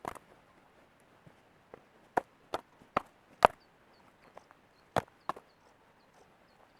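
A string of sharp, dry cracks and snaps, like wood or twigs breaking, about seven in all at uneven intervals, the loudest around the middle.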